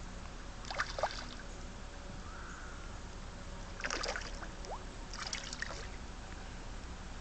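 A hooked Atlantic salmon thrashing at the surface in shallow river water: three bursts of splashing, about a second in, around four seconds and again a moment later, over the steady wash of the river.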